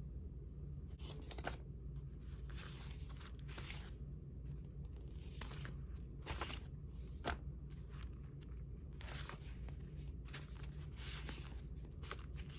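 Paper rustling as old envelopes and postcards are handled and shuffled through: short crisp rustles and scrapes with a few sharp taps, over a low steady hum.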